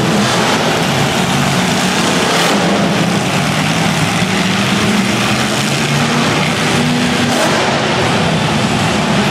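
Monster truck supercharged V8 engines running loud and steady, several trucks at once, with a dense rumble that holds its level throughout.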